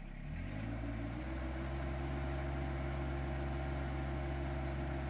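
Tractor engine speeding up over the first second, then running steadily at the higher speed while the front loader lifts the sawmill head on straps.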